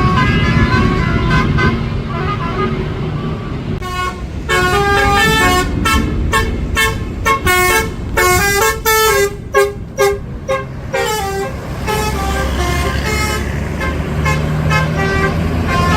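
Tour bus sounding a Basuri 'telolet' multi-tone horn, playing a melody of short stepped notes with brief breaks between them, strongest from about four seconds in until about eleven seconds. A bus engine rumbles underneath.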